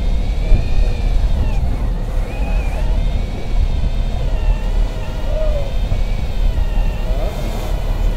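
Electric fishing reel's motor whining as it winds in line, its pitch wavering up and down with the load, over a heavy low rumble.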